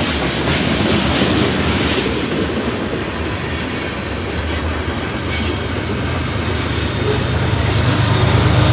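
Loaded grain hopper cars of a freight train rolling past, steel wheels clattering over the rail joints with some high wheel squeal about halfway through. A low rumble builds toward the end.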